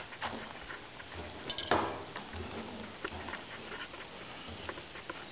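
Faint, scattered small clicks and knocks of fish-cleaning work at the table, a knife and fillets being handled, with one brief voice-like sound about a second and a half in.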